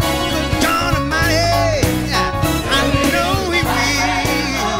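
Gospel song playing: a singer's sliding wordless vocal runs over a full band with a steady bass line.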